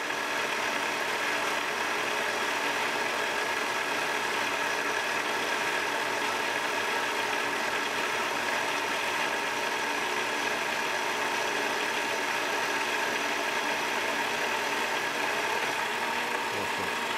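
Craftex mini lathe running steadily under leadscrew power feed, the motor and gear train whirring as the carriage drives itself through a light 10 thou finishing cut.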